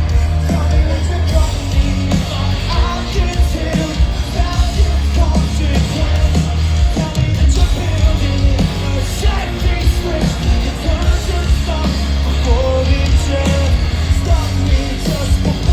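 Live rock band playing loudly with a singer over it, a heavy bass and drums underneath.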